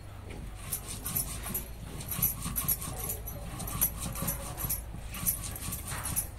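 Curved hand blade shaving the peel off raw kohlrabi bulbs: irregular short crisp scrapes and cuts, several a second.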